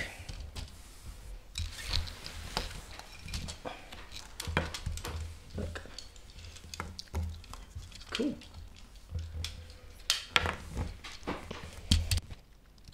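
Plastic Lego Technic pieces clicking and clattering as they are picked from a parts tray, handled and pushed together, with small knocks.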